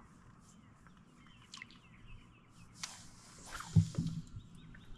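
Small birds chirping in the background, with a few light clicks and one dull thump a little under four seconds in.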